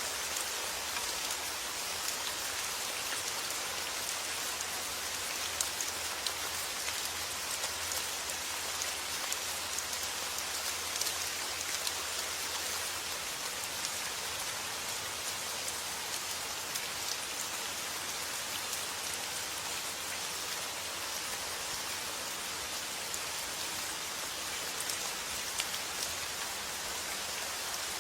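Steady summer rain, an even hiss of falling rain with the patter of individual drops landing.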